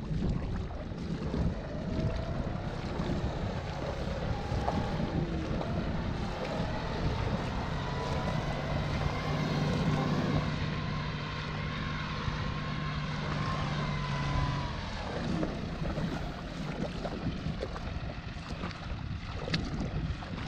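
Wind buffeting the microphone over the distant drone of a John Deere tractor's diesel engine plowing under load. The engine note comes through steadier and clearer for several seconds in the middle, then fades back into the wind.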